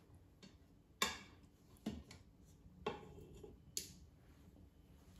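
A spatula knocking and scraping against the stainless steel inner pot of an Instant Pot while lifting out cooked fish fillets: four light, sharp clinks about a second apart.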